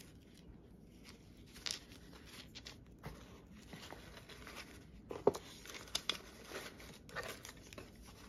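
Packaging being handled by hand: paper or plastic crinkling and rustling, with scattered small clicks and taps. The sharpest tap comes about five seconds in.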